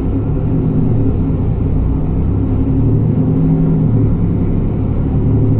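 Interior noise of a Mercedes-Benz Citaro G articulated city bus under way, heard from inside the passenger cabin: the engine and drivetrain make a steady low drone with road rumble, its pitch shifting slightly a couple of seconds in.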